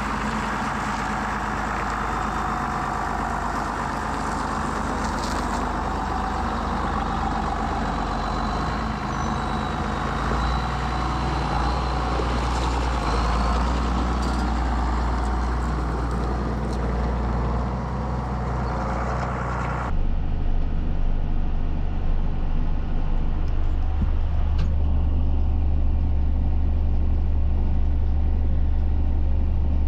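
John Deere 7510 tractor's six-cylinder diesel engine running steadily under way, pulling a round baler. About two-thirds of the way through the sound changes abruptly: the hiss and upper noise drop out and the low engine drone becomes heavier and louder.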